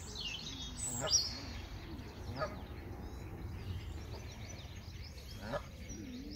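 Canada geese giving short honks, three of them spread across a few seconds, with thin high peeps between.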